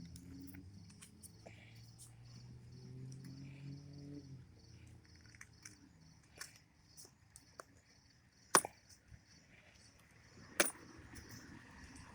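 Small padlock and packaging being handled, with scattered faint clicks and two sharp metallic clicks, one about two-thirds of the way in and one near the end. A faint low hum sits under the first few seconds.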